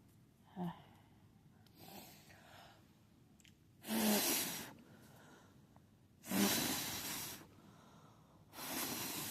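A person blowing hard out of their mouth three times, each blast about a second long, to clear dust out of a laptop's cooling fan.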